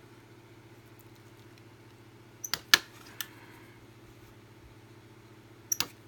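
A few sharp clicks and taps from small craft tools and materials handled on a table: a cluster of three about two and a half seconds in and two more near the end, over a low steady hum.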